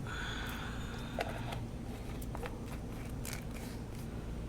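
A few small clicks and scrapes from handling the oil bottle and the new oil filter while priming it with oil, over a low steady hum.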